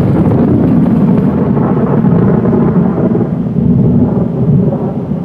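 A long, loud roll of thunder: a steady low rumble that eases off slightly near the end.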